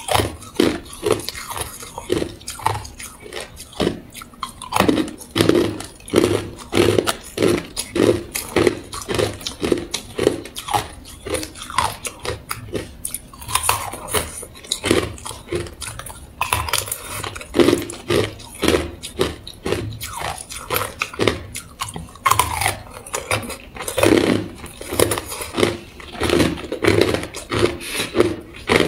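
Hard clear ice cubes being bitten and crunched between the teeth, a continuous run of sharp crunches a few a second as the pieces are chewed.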